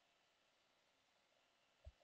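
Near silence: room tone, with one faint, brief low thump near the end.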